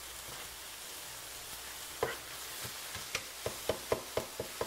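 Ground beef, onion and garlic sizzling as they brown in a skillet. From about two seconds in, a stirring utensil clicks and scrapes against the pan, about four times a second.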